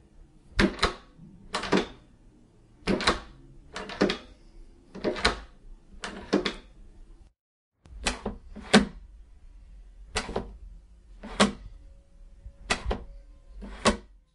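Door handles being turned and released in small rooms, each making a sharp latch click, often doubled, about once a second. About seven and a half seconds in the background briefly drops out and the room tone changes as another room's handle takes over.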